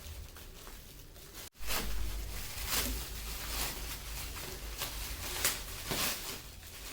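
Rustling and handling of gift packaging, with several short rustles after a brief dropout about a second and a half in.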